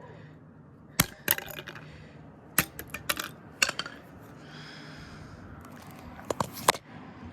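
Sharp clicks and clinks of hard plastic and metal parts knocking together as a glued-in driver is worked at and pried out of a cheap plastic speaker enclosure, in scattered clusters with a brief faint scrape near the middle.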